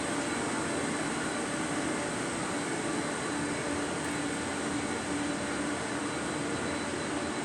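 Industrial plant machinery running steadily: a constant dense roar with a steady low hum and a faint high whine.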